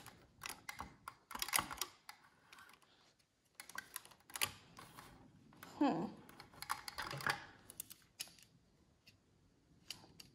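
Irregular clicks and clacks from the exposed cassette transport of a Nakamichi 600 deck as it is handled and its play and record levers are pressed by hand.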